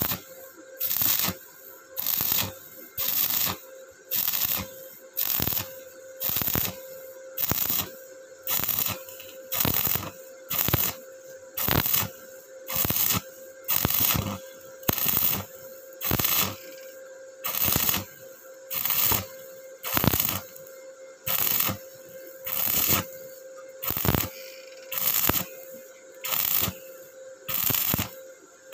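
Stick-welding arc from an Ingco 130 A MMA inverter welder set to 130 amps, crackling and sizzling in regular bursts about once a second over a steady tone. The welder calls the arc very stable.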